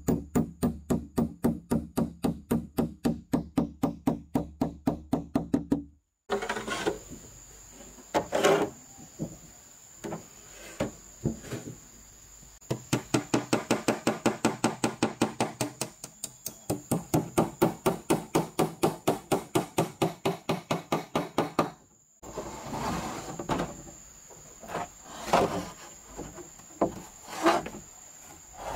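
Hammer driving roofing nails through corrugated roofing sheets into a wooden frame: long runs of quick, even blows, about five a second, broken by scattered single knocks as the sheets are handled.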